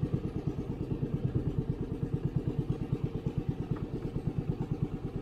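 Small boat engine running steadily at low revs, a rapid, even thudding pulse.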